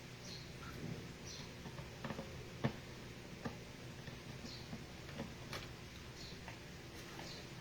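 Scattered light clicks and ticks at irregular spacing, with one sharper click about two and a half seconds in: small parts and tools being handled during work on the laptop's underside.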